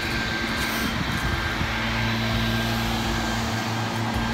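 An engine running steadily in the background, a constant droning hum over a rushing noise.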